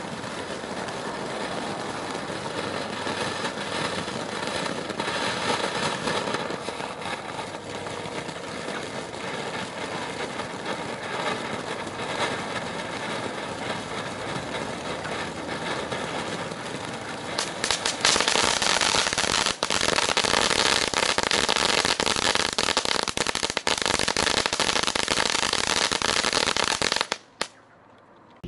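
Kimbolton Poison Ivy battery of fountains spraying sparks: a steady hiss with crackling. Near two-thirds of the way through it gets louder and brighter with thick crackling, then cuts off suddenly about a second before the end as the fountain burns out.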